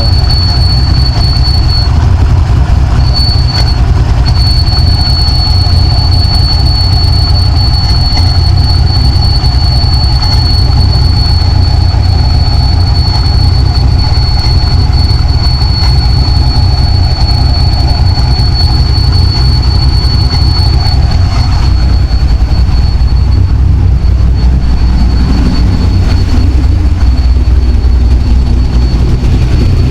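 Corvette engine with headers idling steadily, with a thin high-pitched whistle over the rumble; the idle's tone shifts about two-thirds of the way through.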